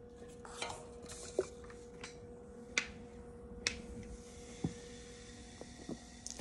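Raw cornstarch being eaten: a plastic spoon scraping in a plastic tub, with several sharp clicks and taps as a drinking glass and a soda can are handled. A faint steady hum runs underneath.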